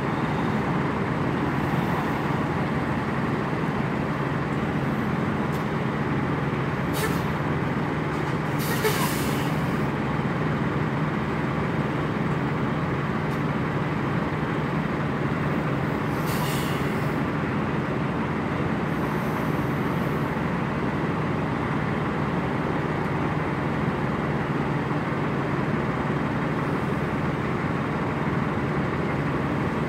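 Semi truck's diesel engine running steadily at idle, with a few short air-brake hisses scattered through.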